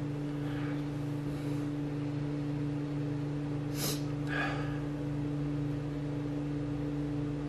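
A steady low hum runs throughout, with a short audible breath about four seconds in as a man raises a glass of beer to smell it.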